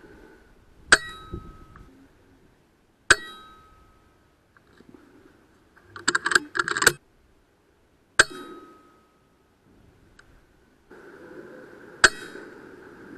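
Air rifle firing four times, each shot a sharp crack with a short metallic ring that fades. About six seconds in comes a rapid run of clicks.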